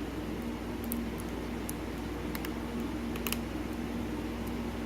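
Faint, scattered small metallic clicks and ticks of a hook pick working the pins of a pin-tumbler lock under tension, over a steady low hum.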